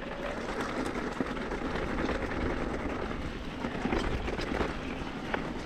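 Tyres rolling over a dirt and stone singletrack trail, a steady rushing noise with scattered rattles and clicks from the bumps.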